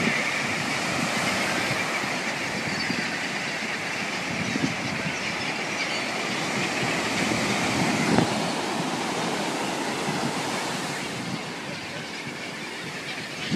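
Surf washing up a sandy beach: a steady hiss of breaking and receding waves, easing off a little near the end.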